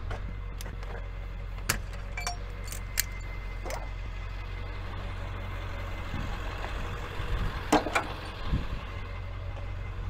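Tow truck engine idling with a steady low hum, under scattered sharp metallic clinks and clanks of tow gear being handled, the loudest a couple of seconds before the end.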